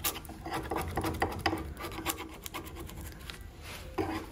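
Lifted, split strips of wood veneer scratching and clicking against each other and the tabletop as they are flexed and pressed down by hand while glue is worked under them. The clicks come irregularly, several a second.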